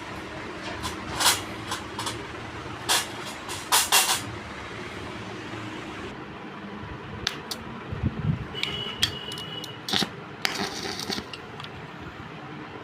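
Scattered metallic clinks and knocks, several in quick succession, over a steady low hum, typical of metal pieces being handled and set down in a fabrication shop.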